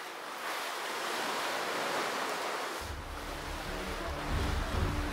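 Sea waves washing and breaking against a sea wall, a steady rushing surf. A low steady hum comes in about three seconds in.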